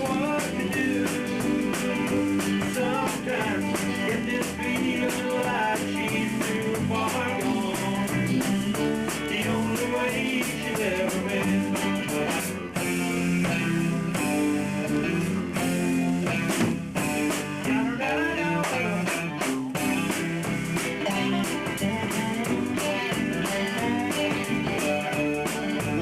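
A small band rehearsing a rock song live, with guitars and a drum kit playing a steady beat.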